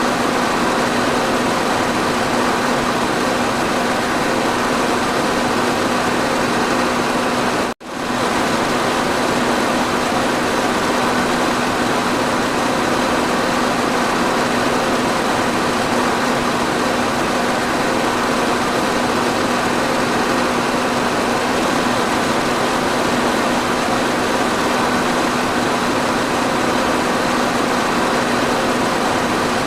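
Electric fan running steadily: an even whooshing rush of air with a constant motor hum beneath it. The sound cuts out for an instant about eight seconds in and picks straight back up.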